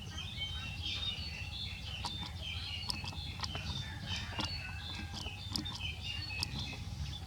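Small birds chirping, with many short high calls overlapping throughout, a few sharp clicks among them, over a low steady background noise.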